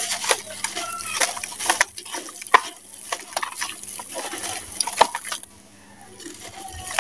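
Damp sand-and-cement lump crumbling in the hands, with crumbs and grit falling into water in a plastic basin: an irregular crackle and spatter, with a short lull about five and a half seconds in.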